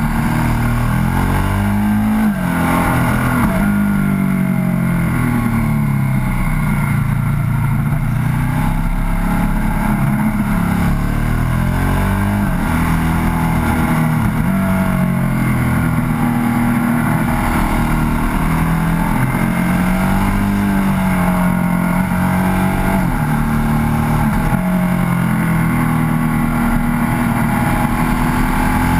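Ducati 1098S's 1099 cc L-twin engine heard on board, under hard riding, its pitch rising and falling every few seconds as the throttle is opened and closed through the bends.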